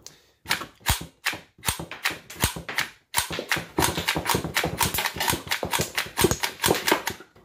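Kel-Tec PLR-22 .22 LR pistol's action worked by hand again and again, a run of sharp metallic clicks and clacks as rounds are chambered and extracted one after another. The clicks come about two a second at first, and after a short break about three seconds in they come faster and closer together.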